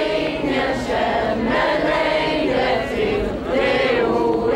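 A crowd singing together, many voices holding long notes.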